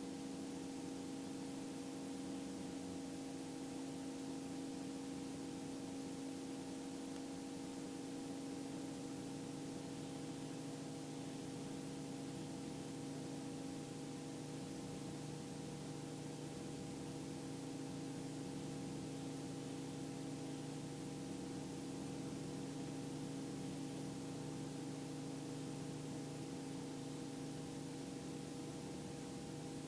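Steady drone of the Robinson R44 II helicopter running, heard faintly through the headset intercom as a low hum with a few constant tones over a light hiss.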